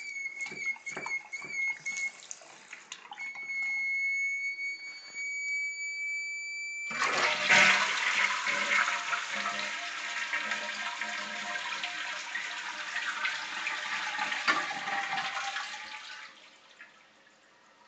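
Toilet tank fill valve whistling: a steady high-pitched tone that breaks off briefly about 2 seconds in, then returns and creeps slightly upward in pitch. About 7 seconds in the toilet flushes, and a loud rush of water takes over for several seconds before fading away.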